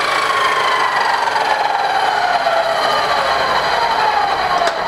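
Ridgid abrasive chop saw's motor and cutoff wheel spinning down after a cut through steel tubing: a loud whine falling slowly in pitch. A sharp metallic click near the end.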